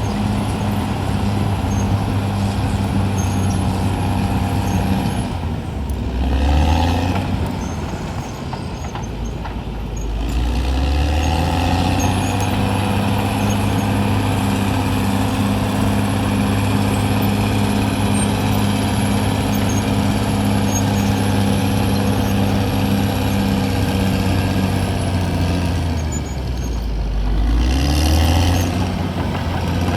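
CAT D6R XL crawler bulldozer's diesel engine running steadily under work. Its note drops and then climbs back, once about six seconds in and again near the end.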